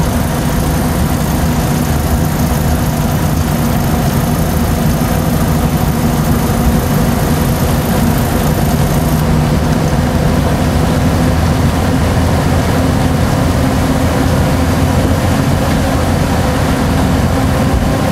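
Rio Grande Southern Galloping Goose #7 rail motorcar's engine running steadily as it moves along the track, heard from inside the cab up front.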